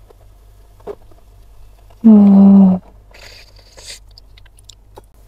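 A woman's closed-mouth hum, one 'mmm' under a second long about two seconds in, falling slightly in pitch. Faint wet squishing and small clicks of food being squeezed and handled around it.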